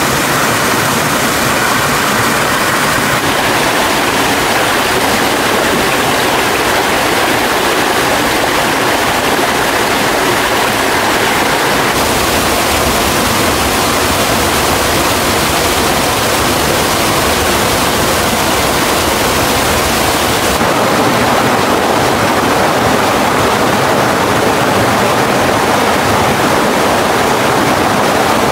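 Waterfall and mountain stream water rushing, a loud steady roar of falling water whose tone shifts abruptly a few times.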